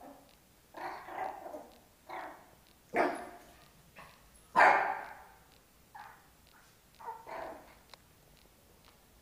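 A puppy barking in a series of about six short barks and yelps, spaced roughly a second apart, the loudest about halfway through.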